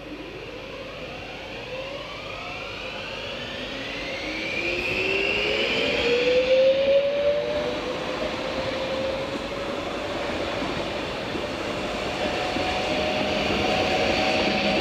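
Electric multiple unit pulling away from the station and accelerating past, its traction motors giving a whine of several tones that rise steadily in pitch, over the rumble of the wheels on the rails.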